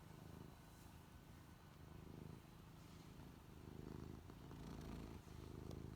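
Domestic cat, 17 years old, purring faintly, the low rumble swelling and fading in slow waves.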